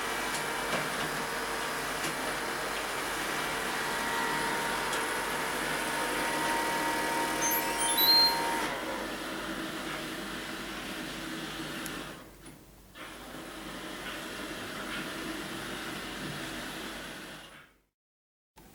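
Robot vacuum cleaner running: a steady motor and suction hum with whining tones. About eight seconds in comes a quick rising run of high tones, then the sound drops to a quieter, lower run, and it cuts off just before the end.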